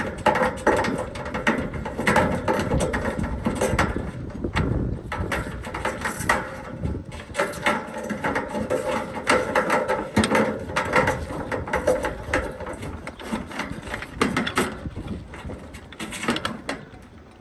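Hands working electrical wiring and a metal disconnect box: irregular clicks, scrapes and rattles as wires are fed through the box's knockout and the fittings are handled. A faint steady hum runs underneath.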